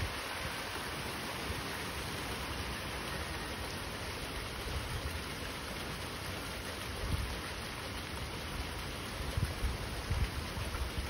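Steady rain pouring down, with gusts of wind buffeting the microphone a few times in the second half.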